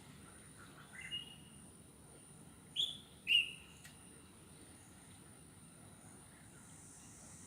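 Jungle ambience: a few short bird calls, the two loudest close together about three seconds in, over a steady high-pitched insect drone.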